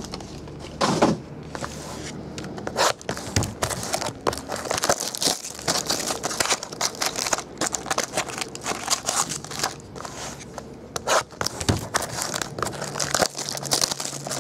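Clear plastic shrink-wrap being torn and crinkled as it is stripped off trading card boxes, with a few knocks of the boxes against the table.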